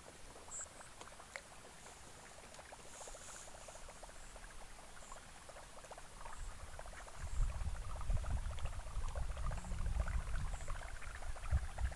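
Fishing reel being cranked while retrieving a lure: a fast, steady run of small clicks. A louder, gusty low rumble joins about seven seconds in.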